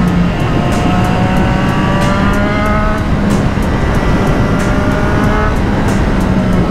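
Triumph Street Triple RS inline-three engine with a Yoshimura Alpha T exhaust, under way and pulling up through the revs twice, with a break in pitch about three seconds in that fits a gear change. Wind rushes over the onboard microphone.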